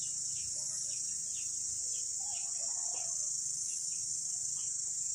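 Steady, high-pitched chorus of insects such as crickets, running on without a break.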